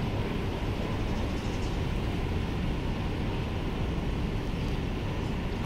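Steady outdoor ambient rumble and hiss with no distinct events, of the kind heard from distant city traffic.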